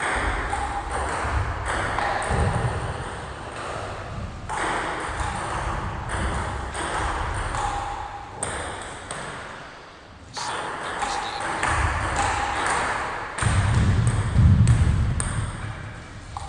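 Table tennis ambience in a gym hall: ping-pong balls ticking on tables and paddles in quick, irregular rallies, the clicks echoing in the room. A low rumble swells underneath a few times, loudest about two-thirds of the way through.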